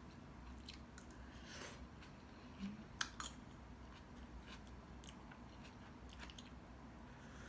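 Faint chewing of a person eating spoonfuls of stew, with small scattered clicks and one sharp click about three seconds in.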